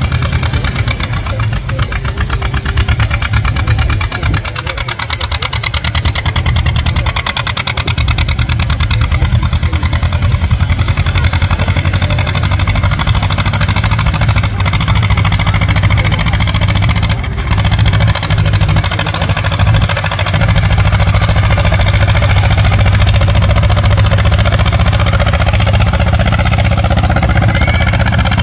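Vintage farm tractor engine running, a loud, steady, rapid chugging beat.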